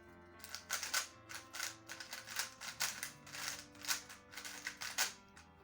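Stickerless QiYi M Pro 3x3 speedcube turned fast during a speedsolve: a rapid, uneven run of plastic clicks and clacks, several a second.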